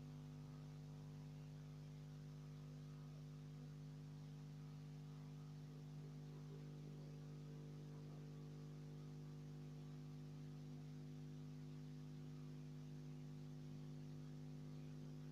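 Faint, steady electrical hum of several low tones under light hiss, near silence, with no thunder or rain.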